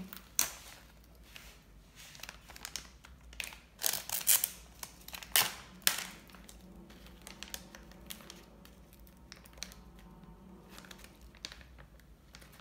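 Plastic cheese packaging crinkling and rustling as it is handled, in irregular short bursts, loudest about four to six seconds in.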